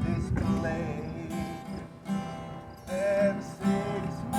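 Background music: acoustic guitar strumming over a steady pulse, with a melody line on top.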